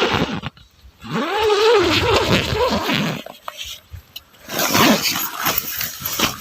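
Rustling of sleeping-bag fabric as the man moves inside it, with a drawn-out, wordless vocal sound from him in the middle.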